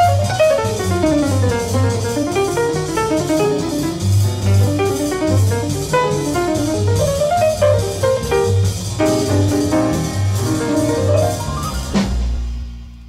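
Instrumental jazz with a drum kit and a running melody line over regular low bass pulses, ending on a final struck chord near the end that rings out and fades.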